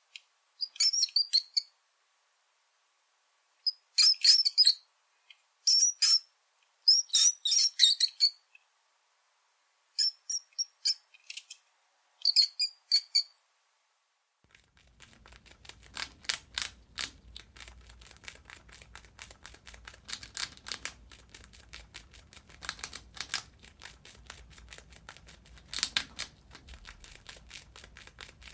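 Mouse squeaking in short high-pitched clusters, separated by silent gaps. About halfway through it gives way to a steady run of rapid, dry clicking and scratching.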